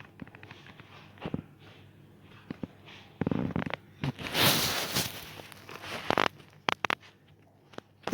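A person hiccuping: short, sudden hics a few seconds apart. About four seconds in there is a louder one-second rush of breath-like noise.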